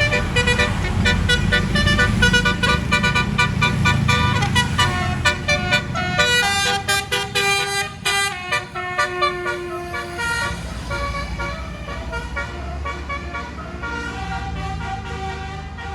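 Bus basuri telolet horn playing a melody: a quick run of short, separate notes for the first half, then slower, longer held notes, over a low rumble.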